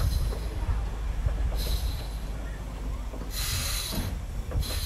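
Miniature steam locomotive moving slowly on its track: a steady low rumble, with puffs of hissing steam about every second and a half.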